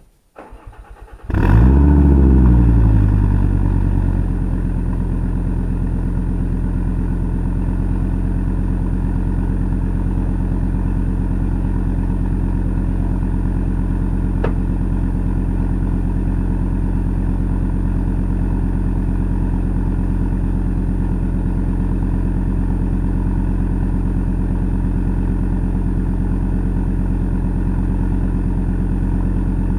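Cold start of a Fiat Coupe 20V Turbo's five-cylinder engine: it cranks for about a second, catches with a loud flare that winds down over a couple of seconds, then settles into a steady idle.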